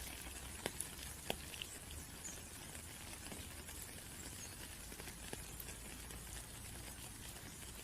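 Rain falling in a steady hiss, with individual raindrops ticking sharply now and then, several of them in the first two seconds.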